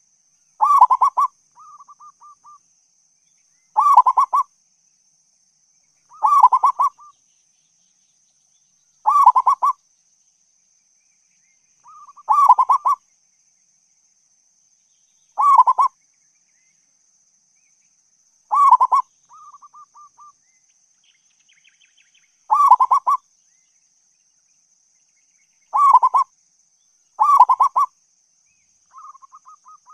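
Zebra dove (perkutut) cooing: about ten short rolling coo phrases, each under a second, repeated every three seconds or so, a few followed by a softer trailing note.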